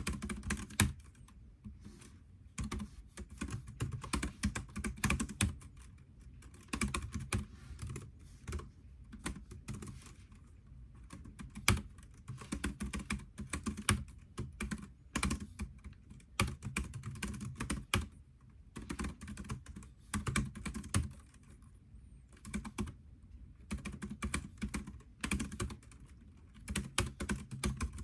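Typing on a computer keyboard: runs of quick keystrokes broken by short pauses every few seconds.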